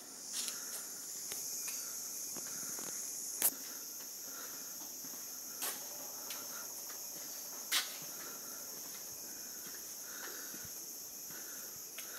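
Steady, high-pitched insect chorus, with three sharp clicks about three and a half, five and a half and eight seconds in.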